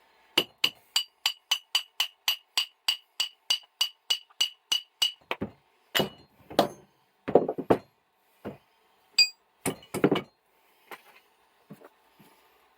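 Hammer striking steel parts of a vise being taken apart: a quick run of ringing metallic taps, about three or four a second for roughly five seconds. After that come a few heavier, irregular knocks.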